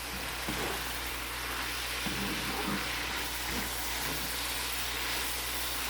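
Ground chicken and shredded cabbage sizzling steadily in a cooking pot over the flame.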